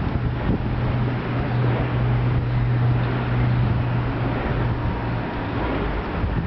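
Wind buffeting the microphone, with a steady low machine hum that stops about five seconds in.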